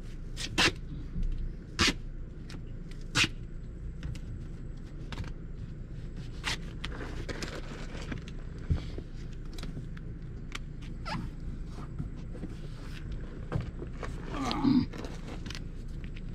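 Gorilla Tape being pulled off its roll and handled for patching an RV underbelly: scattered sharp taps in the first few seconds, then a stretch of rasping about seven seconds in. Near the end comes a short pitched sound that bends in pitch, over a low steady hum.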